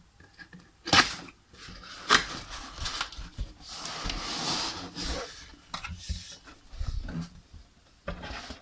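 Cardboard packaging being opened and handled by hand: two sharp snaps or knocks about a second apart, then a stretch of rustling and scraping, with a few lighter knocks near the end.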